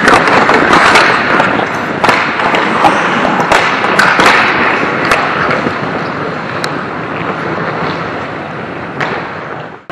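Ice hockey play close to the goal: skate blades scraping the ice, with many sharp clacks of sticks and puck. The sound cuts off suddenly at the very end.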